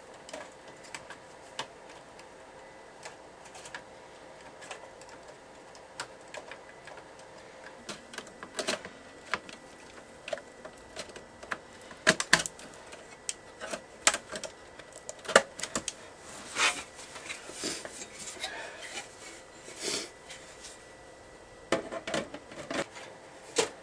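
Irregular plastic and metal clicks, snaps and knocks of hands working inside an open Dell OptiPlex 7010 desktop case while a video card is fitted. The clicks are sparse at first and come thick and fast in the second half, with a louder snap near the end as the side cover goes back on.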